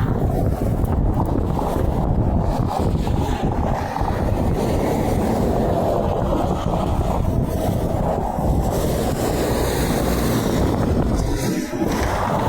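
Steady rumble of interstate traffic with semi trucks passing, mixed with wind buffeting the microphone. There is a brief lull near the end, and no horn is sounded.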